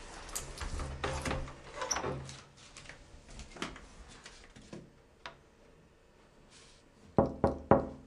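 Small clicks and rustles of movement at a wooden door, then three sharp knocks in quick succession near the end.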